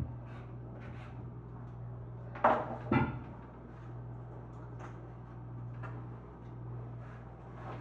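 Two sharp knocks about half a second apart, a few seconds in, with faint small clicks, over a steady low hum.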